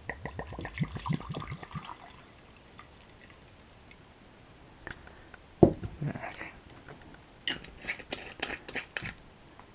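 Vodka poured from a bottle into a mug, glugging for about two seconds. About halfway through comes a single loud knock, the loudest sound, and near the end a run of sharp clicks.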